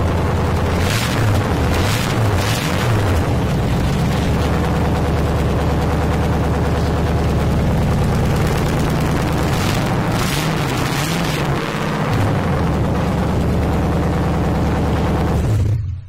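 Lexus LS400's 1UZ V8 running with the whole exhaust removed, no silencers at all: a loud, raw, evil-sounding idle, revved up a little around a second in and again about ten seconds in, then switched off and cutting out just before the end.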